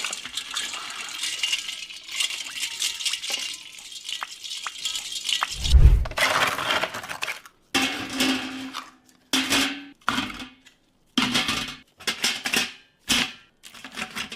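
Food frying in a covered pan, a steady sizzle. About six seconds in there is a heavy thud, followed by a series of short kitchen clatters and clinks that start and stop abruptly.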